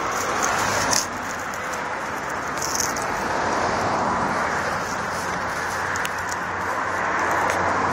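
Steady hiss of distant road traffic, with a few faint light clicks and rustles.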